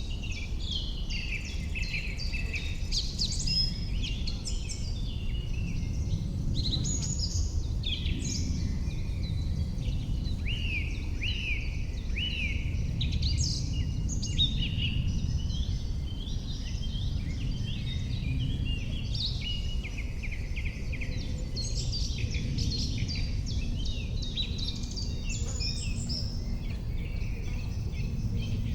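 Several songbirds singing at once, overlapping chirps and trills throughout, over a steady low rumble.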